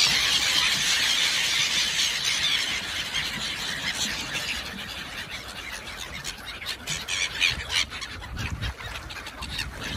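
A flock of black-headed gulls squealing and calling as they mob thrown bread on a pond, among flapping wings. The din is loudest at the start and eases off over the next few seconds.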